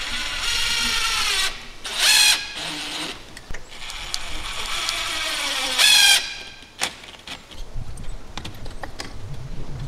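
Cordless drill-driver running Phillips screws into a door lockset. There is a whirring run of about a second and a half, a short loud burst, then a longer run whose pitch drops as the screw draws tight, followed by a few light clicks.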